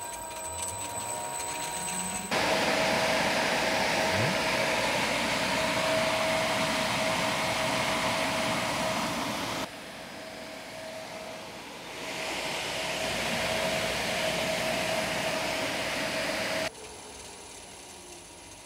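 Belt-driven radial fan running at speed, driven by an electric motor through an Optibelt Super XE-Power Pro V-belt: a steady rush of air with a steady whine. The sound steps up about two seconds in, drops abruptly about ten seconds in, rises again, and drops once more near the end.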